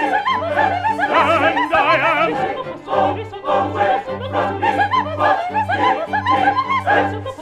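Operatic singing: voices with wide vibrato, at times several at once, over a low bass note that pulses in a steady, repeating beat.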